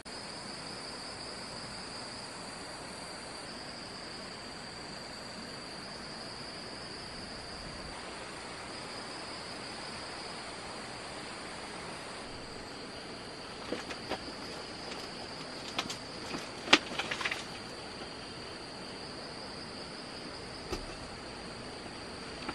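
Steady chorus of forest insects, a continuous high-pitched trill. About two-thirds of the way through comes a cluster of sharp snaps and clicks, with one more near the end.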